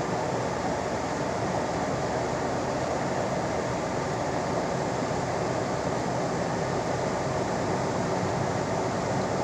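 Steady car cabin noise while driving slowly: engine, tyres on the road and the heater fan running together as an even hum.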